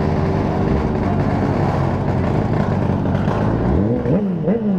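Motorcycle engine running steadily. From about three and a half seconds in, a pitched engine note rises and falls again and again, like a throttle being blipped.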